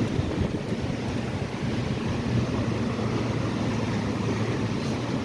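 Steady, fluttering rumble of wind buffeting the microphone outdoors, heaviest in the low end.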